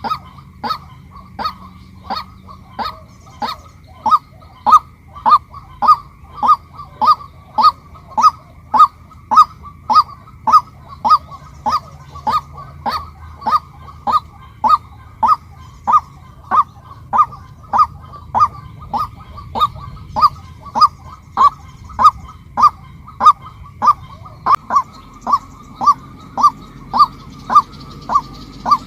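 Female white-breasted waterhen calling a long, steady series of short, repeated kwak notes, about two a second.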